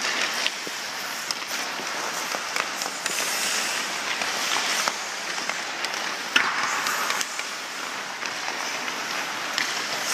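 Hockey skate blades scraping and carving on the ice, with scattered clicks of a hockey stick working the puck and one sharper knock about six seconds in. The scraping swells louder twice, a few seconds in and again after the knock.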